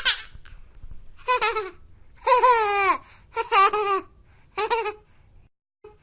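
A baby laughing and babbling: five short, high-pitched squealing calls about a second apart.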